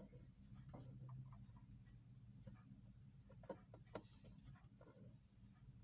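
Near silence, with a few faint, irregularly spaced small metallic clicks from the opened wristwatch being handled with tools.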